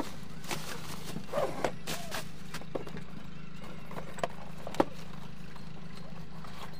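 Cardboard box and bubble-wrap packaging handled during an unboxing: scattered light knocks, taps and rustles, the sharpest knock near the end. A steady low hum runs underneath.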